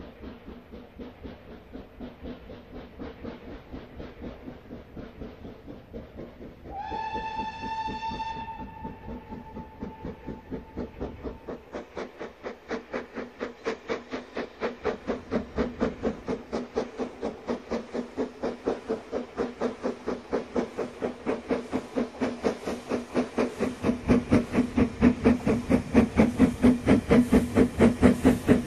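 BR Standard Class 4MT steam locomotive No. 75078 working towards the listener, its regular exhaust beats growing steadily louder as it approaches. About seven seconds in it sounds its whistle once, for about two seconds.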